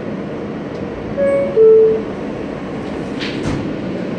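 R160A subway car door-closing chime: a higher note and then a lower, louder one about a second in. About three and a half seconds in, the doors slide shut with a brief thud, all over the car's steady hum.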